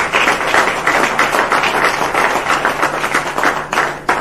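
Audience applauding: a dense patter of many hands clapping that starts to thin out near the end.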